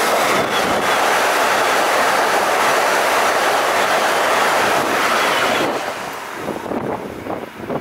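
A Hyundai Intercity+ electric trainset passing at speed on the next track, heard from the open window of a moving train: a loud, steady rush of air and wheel noise that drops off suddenly a little under six seconds in as its tail goes by. After it, the quieter clatter of the observer's own train's wheels on the rails takes over.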